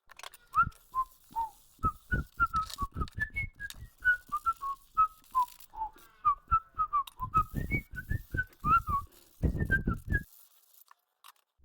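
Hand sanding with 150-grit sandpaper: a quick run of short rubbing strokes, with short high chirping squeaks riding on them, stopping shortly before the end.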